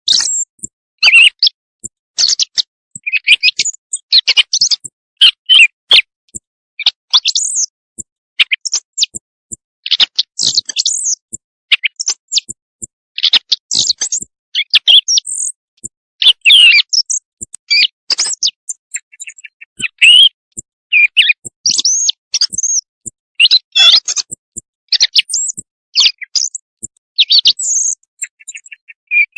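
Recorded bird song played as a hunter's night lure call: loud, high-pitched chirping phrases follow one another in quick bursts with short gaps between them.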